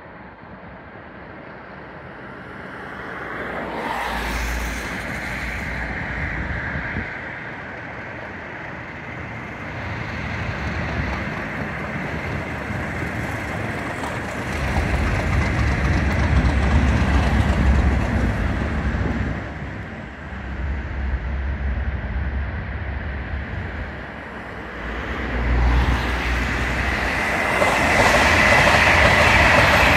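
Two Class 37 diesel locomotives approach and pass beneath, their English Electric V12 engines running with a heavy low rumble that is loudest about halfway through. Near the end an electric Pendolino train passes close on the next line with a loud, steady high rushing sound.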